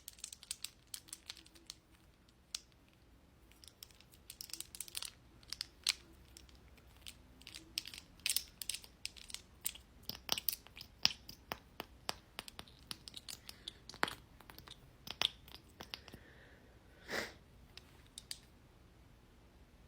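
Close-miked makeup application: a run of soft, irregular taps, clicks and crackles from makeup tools and containers, busiest in the middle, with one brief louder sound about seventeen seconds in.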